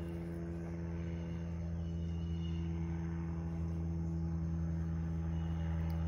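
Steady low mechanical hum, slowly getting louder, with faint insect chirping over it.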